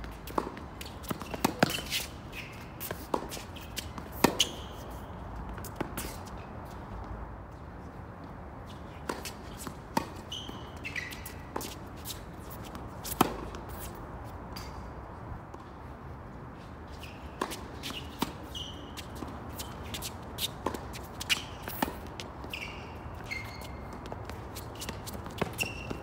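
Tennis rally on a hard court: sharp pops of rackets striking the ball and the ball bouncing, at irregular intervals, with the loudest hits about 4 and 13 seconds in. Sneakers squeak briefly on the court surface several times, and there are shuffling footsteps.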